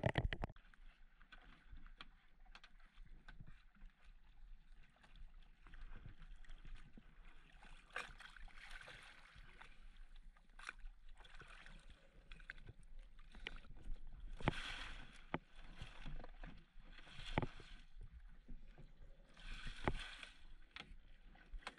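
Water sloshing and splashing in short bursts every two to three seconds, with scattered sharp clicks over a faint steady hiss.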